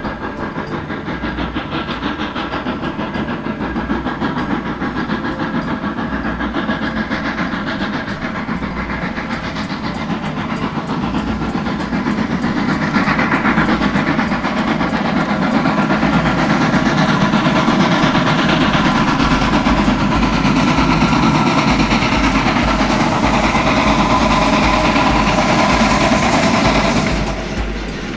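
TKt48 steam tank locomotive hauling a train, its exhaust and running noise growing louder about halfway through and falling away shortly before the end.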